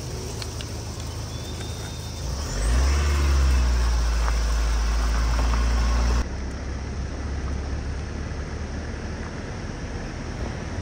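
Low rumble of a vehicle running at road speed, growing much louder about two and a half seconds in, then switching abruptly to a quieter, steady rumble about six seconds in.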